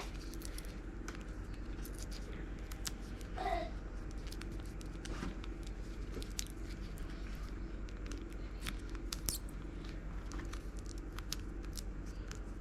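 Scattered light clicks and crinkles of tape and small craft pieces being handled, over a steady low hum.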